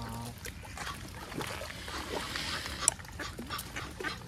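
Geese and ducks calling at close range: short low calls, one at the very start and another about a second and a half in, with scattered sharp clicks.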